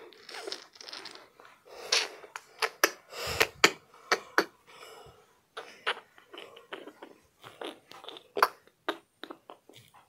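A string of irregular soft clicks and crunches close to the microphone, with a couple of short rustles in the first few seconds.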